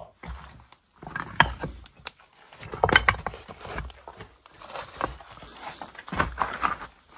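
Footsteps crunching and scuffing on gritty, rocky ground, uneven steps with small clicks of stone.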